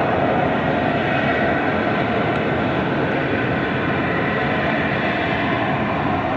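Harrier jump jet hovering, its Rolls-Royce Pegasus jet engine giving a steady, loud rushing noise with no change in pitch.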